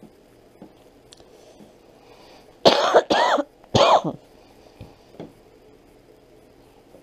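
A person coughing three times in quick succession, starting about two and a half seconds in, the third cough after a short pause.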